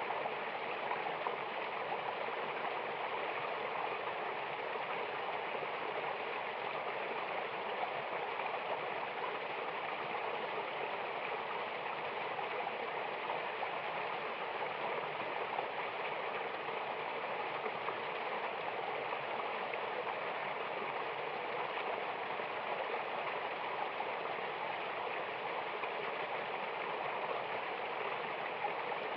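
Mountain waterfall and stream rushing, a steady, even wash of water.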